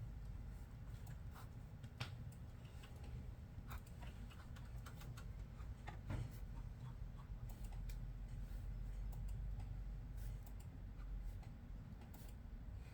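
Computer keyboard typing: scattered, irregular key clicks over a low steady hum.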